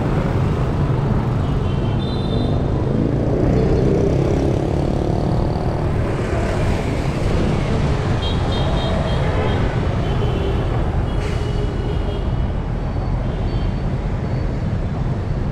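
Dense street traffic of motorbikes and cars passing: a steady rumble of engines, with one engine note rising a few seconds in and short faint high beeps now and then.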